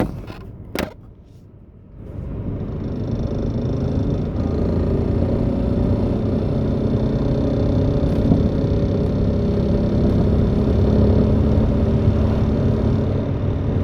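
Two knocks as a phone is set down, then the 2002 Mercury Cougar's 2.5 L V6 and road noise build up in the cabin as the car pulls away under throttle and hold steady. At about 2,000 rpm under throttle the owner hears a rapid rattle from under the hood, like machine-gun fire, which quits when he lets off the gas; its cause is unknown to him.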